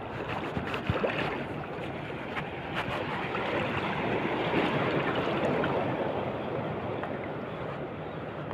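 Wind blowing across the microphone over sea water splashing around a small boat, with a few light knocks about a second in.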